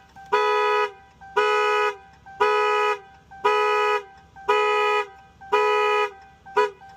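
Dodge vehicle's horn honking in a steady rhythm, one half-second blast about every second, with a faint steady tone underneath.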